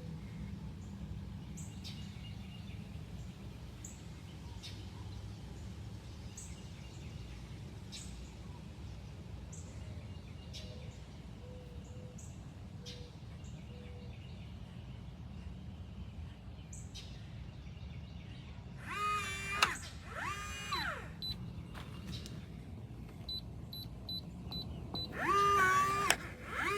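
Low steady background hum with faint ticks. Then, twice near the end, the small motor of an electronic keypad deadbolt whirs as it drives the bolt, its pitch rising and then falling, with a quick run of short high beeps from the keypad before the second whir.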